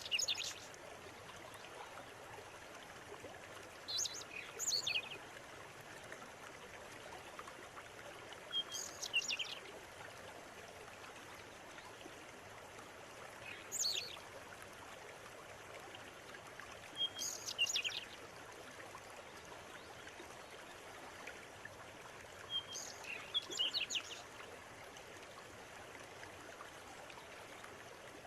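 Steady rush of a flowing river, with a songbird singing short, high, chirpy phrases about every four to five seconds.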